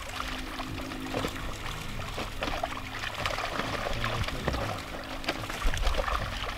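Tambaqui thrashing in a tightly drawn seine net in shallow pond water: a continual mass of irregular splashes and trickling water, with quiet background music underneath.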